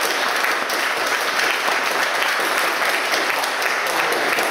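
Audience applauding, dense and steady.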